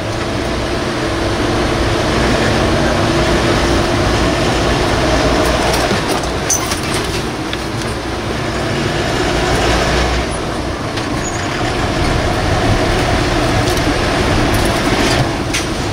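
Steady engine and road noise heard from inside a moving Force Motors air-conditioned bus, with a few light knocks.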